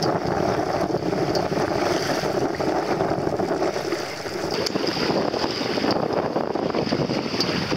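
Steady wind buffeting the microphone, mixed with the rush of choppy water along the hull of a small sailboat under way.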